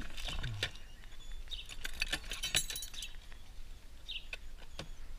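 Light clinks and rattles of small hard objects, bunched around two to three seconds in, with birds chirping several times.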